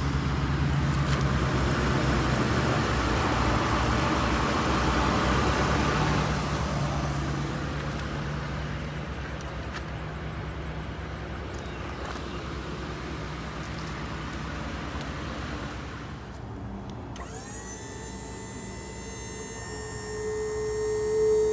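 Ford F-450's 6.8-litre V10 gasoline engine idling steadily. Near the end it gives way to steady electronic tones, one of them loud and high.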